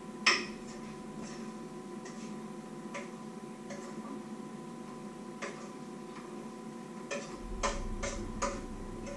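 Scattered light clicks and taps of kitchen handling with a metal bowl and cloth, one sharper click just after the start and a quicker run of them near the end, over a steady electrical hum.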